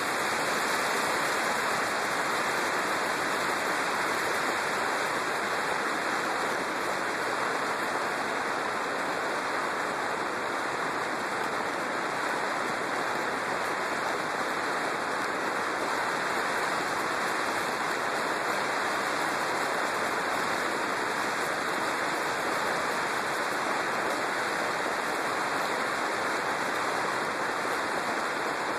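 Steady rush of wind over the microphone of a camera mounted on a moving motorcycle, with no engine note standing out.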